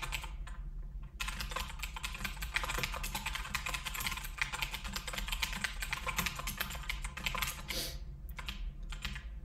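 Typing on a computer keyboard: a quick, uneven run of key clicks, with brief pauses near the start and again near the end.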